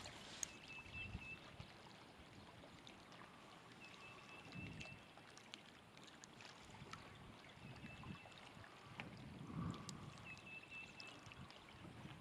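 Near silence: faint wind and small waves lapping at the lake bank, with a faint short high whistle that recurs four times.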